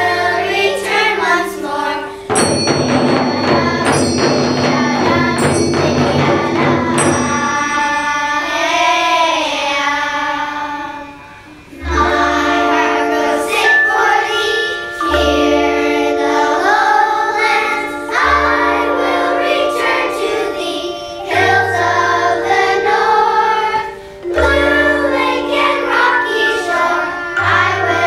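Children's choir of young girls singing, with instrumental accompaniment of held low notes. A stretch of rattling hand percussion sounds from about two to eight seconds in.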